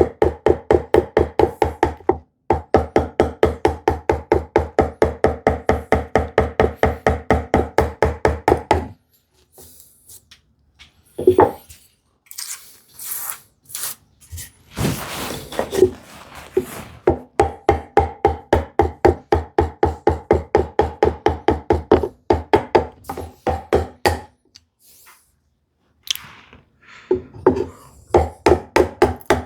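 Rapid, even knocking of a hand tool cutting into a sapele drawer front, about five strikes a second, in runs several seconds long. A stretch of lighter scraping and rustling breaks up the runs in the middle.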